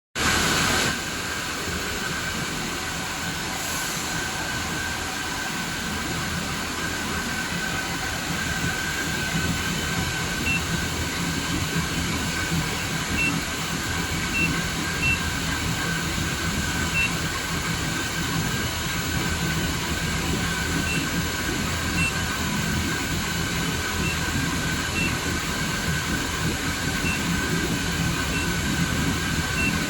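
Steady machinery noise with a constant high whine, and faint short high pips now and then.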